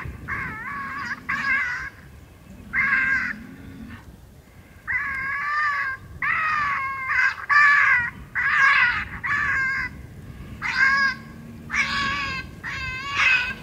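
Predator call sounding wavering, high-pitched distress cries in repeated bursts of half a second to two seconds, used to lure coyotes in.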